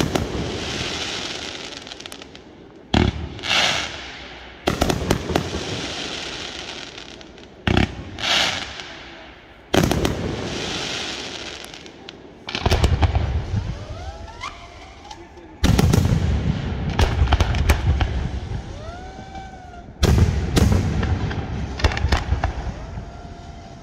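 Fireworks display: about seven aerial shells burst with sudden bangs every few seconds, each followed by a long crackling hiss as the stars burn out. The bursts from about halfway on are deeper, heavier booms.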